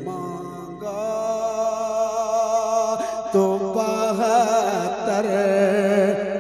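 A man singing a naat into a microphone. He draws out long held notes that waver up and down in pitch.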